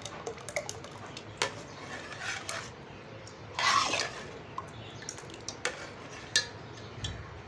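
A steel ladle stirring milk thickened with cornflour in a steel pot: scattered light clinks of metal on metal and the slosh of the liquid, with a louder scrape and slosh a little past halfway.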